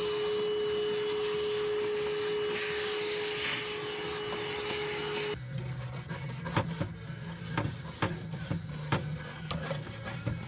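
A small electric tool runs with a steady hum and hiss, then stops about five seconds in. Irregular scraping and tapping strokes follow as the hatch's gasket channel is worked clean of old gasket and adhesive.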